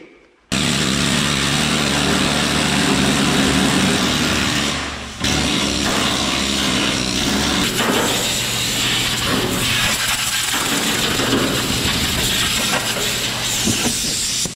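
Pneumatic needle scaler hammering loose rust off a truck's steel inner wheel-house panel: a loud, continuous buzz that eases for a moment about five seconds in, then stops abruptly at the end.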